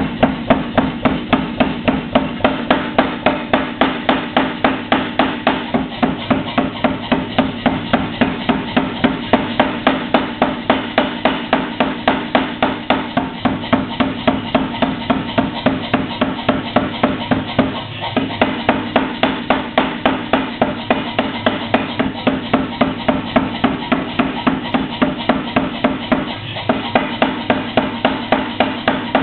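Mechanical power hammer forging steel chainplates, striking in a fast, even rhythm of about three to four blows a second. There are two brief breaks, at about 18 s and 26 s.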